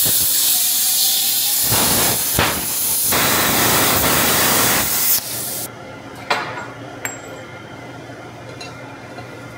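Handheld plasma cutter hissing loudly and steadily as it cuts a round hole through quarter-inch-wall steel pipe, shutting off about five seconds in. A quieter steady hum remains, with two sharp clicks about a second apart.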